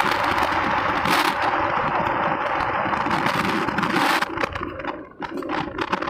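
Motorcycle in motion: wind rushing over the microphone, with the engine running underneath. The rush eases about four seconds in, giving way to choppier gusts and rattles.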